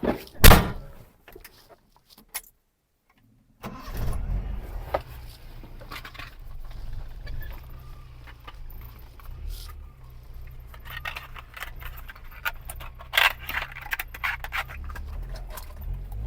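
A single loud thump about half a second in, then, after a brief dead silence, a car engine running steadily with a low rumble, and scattered rattles and clicks over it.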